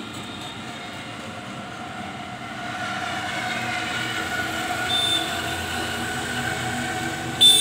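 Road traffic with a motorbike engine humming steadily and growing louder as it approaches. A short, sharp high-pitched tone comes near the end.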